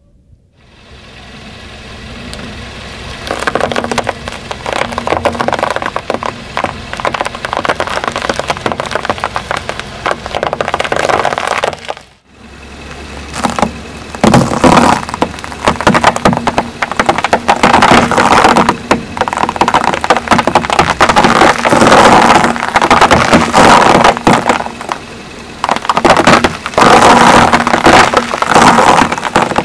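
Sugar cubes crunching and crackling under a car tyre as it rolls onto the pile, a dense run of sharp cracks over the low hum of the car's engine. The crunching breaks off abruptly about twelve seconds in and starts again, louder, a couple of seconds later.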